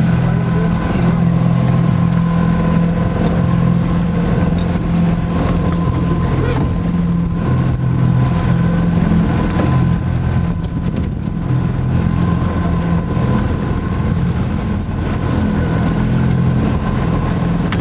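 Boat's outboard motor running steadily at low speed, a constant low hum.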